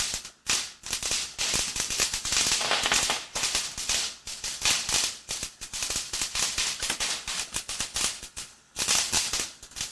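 Consumer firework crackling: a dense, rapid stream of small pops and hiss. It pauses briefly near the end and picks up again for a moment.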